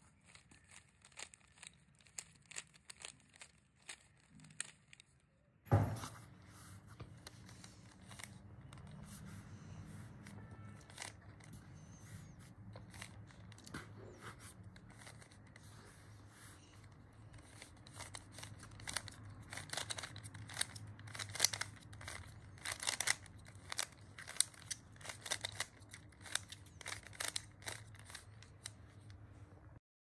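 Plastic Rubik's cube being turned by hand: irregular runs of quick clicks and rattles as the layers snap round, busiest in the second half. A thump about six seconds in, after which a low steady hum runs underneath.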